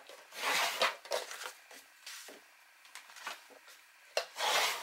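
Bone folder rubbed firmly along the fold of a piece of cardstock to burnish the crease: two scraping swishes, one just after the start and one near the end, with light paper rustles and taps between.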